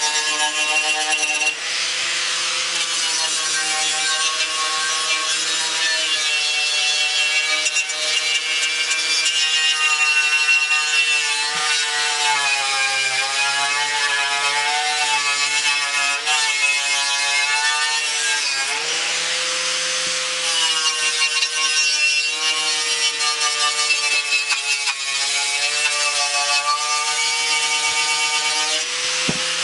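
Angle grinder with a wire wheel brush scouring painted metal on a truck grille piece, taking it down toward bare metal before primer. The motor whine sags and recovers in pitch as the brush is pressed on and eased off, over a steady scratchy rasp.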